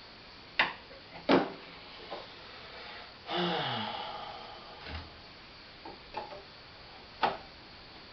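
Sharp clicks and knocks from the hand reassembly of a Corona hand-cranked corn mill, with small screws and parts being handled. About three seconds in there is a longer scrape whose pitch falls. More light taps follow, and a last sharp click comes near the end.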